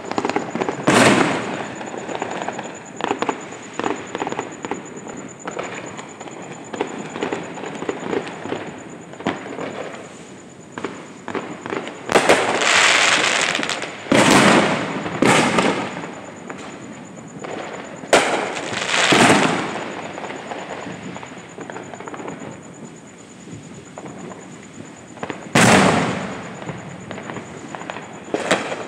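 Aerial fireworks going off: about seven loud bangs from bursting shells spread over the half-minute, with many smaller crackling pops in between and a longer spell of crackle after one of the bursts.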